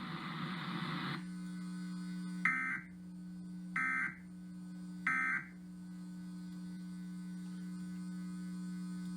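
Three short, identical bursts of Emergency Alert System end-of-message data tones (the SAME "NNNN" code), about 1.3 seconds apart, closing the national EAS test. Under them runs a steady electrical hum; a hiss stops about a second in.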